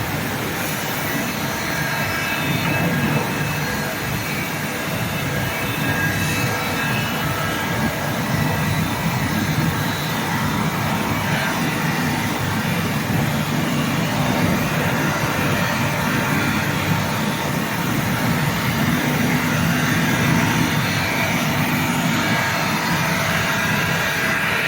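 CNC glass machining centre running steadily while edging glass, a continuous mechanical noise with faint steady tones and no pauses.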